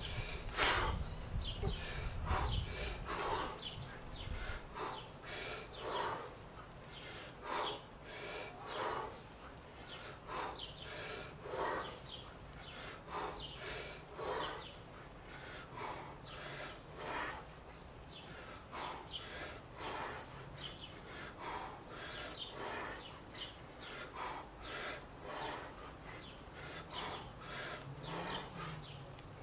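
Forceful rhythmic breathing of a man doing 40 kg kettlebell snatches, sharp breaths about once a second, with birds chirping in the background and a low rumble in the first few seconds.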